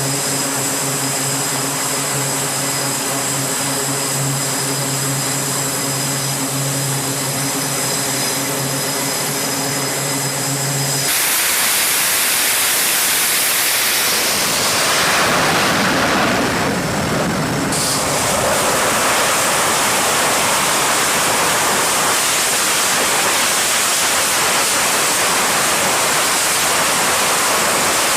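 Jet aircraft engines running on a carrier flight deck: a steady whine with several pitches at once. About eleven seconds in it switches abruptly to a loud, even rushing noise.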